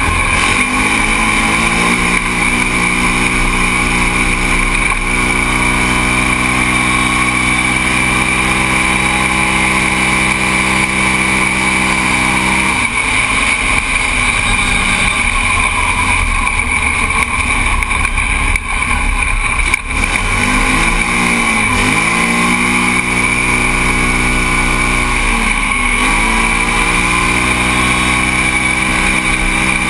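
Rotax-engined Yamaha Rhino race UTV running hard at racing speed, heard on board in the open cockpit. The engine note holds fairly steady at first, then dips and climbs back twice in the second half as the driver eases off and gets back on the throttle.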